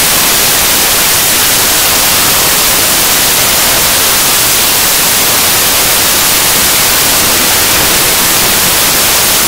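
Loud, steady static hiss, an even noise with no tone in it, strongest in the highs. It cuts off suddenly at the very end.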